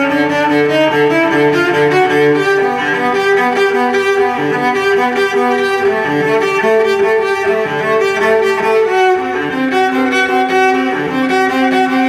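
Background music with bowed strings playing long, held notes.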